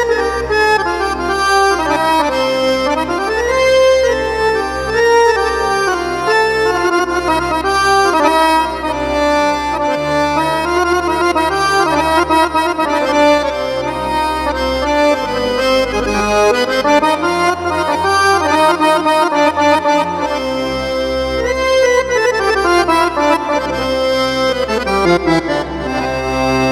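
Arabic accordion voice from a sound pack for the Yamaha PSR-A5000 arranger keyboard, playing an ornamented melody with quick up-and-down runs over held bass chords that change every few seconds. A long falling run comes near the end.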